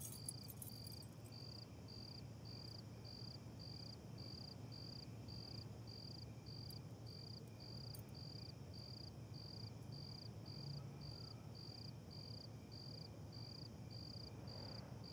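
Faint cricket chirping, a steady high pulse about twice a second, over a low background hum.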